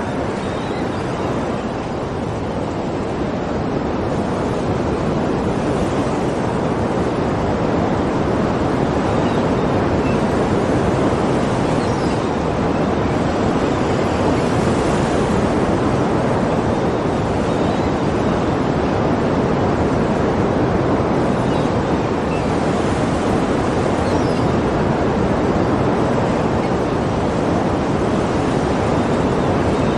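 Sea surf: a steady wash of waves, swelling a little now and then.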